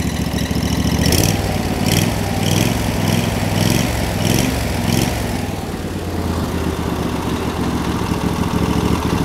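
Freshly rebuilt Briggs & Stratton Intek I/C 20 HP engine running and revved in several quick throttle blips from about a second in to about five seconds in, then settling back to a steady run. Through it all comes the god-awful noise of its muffler.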